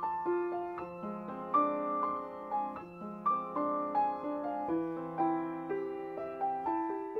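Piano music: a melody of single notes struck one after another over low bass notes that are each held for a couple of seconds.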